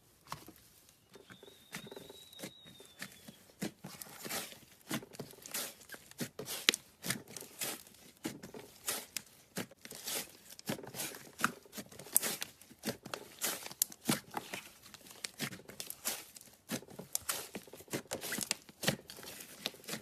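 Slime being squeezed and stretched by hand, with a dense, irregular run of crackling and popping clicks from air pockets in the slime.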